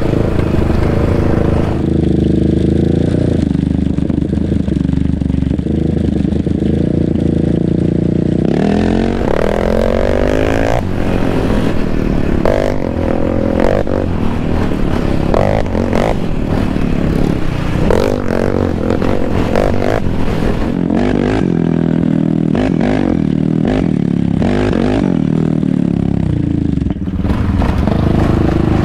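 Yamaha Raptor 700R sport ATV's single-cylinder engine with an aftermarket Monster exhaust, running at a steady pitch for the first several seconds. After that it rises and falls as the throttle is worked on the trail, with many knocks and rattles from the machine bouncing over rough dirt.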